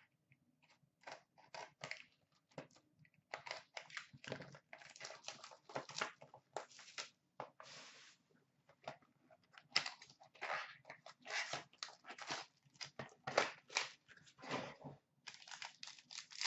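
A hockey card box and its packs being opened by hand: irregular crinkling, tearing and rustling of cardboard and plastic wrapping, sparse at first and busier from about three seconds in.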